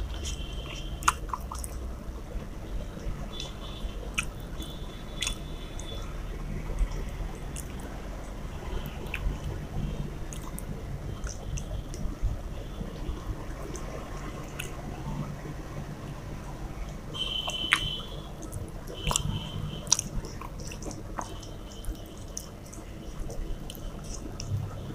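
Close-up eating sounds: fingers mixing and picking at rice and fish curry on a stainless steel plate, a soft wet squishing with many small clicks and taps against the metal, along with chewing.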